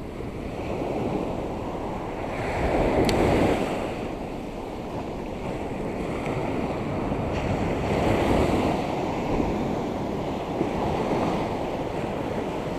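Surf breaking and washing up a sandy beach, swelling and easing every few seconds, with wind on the microphone.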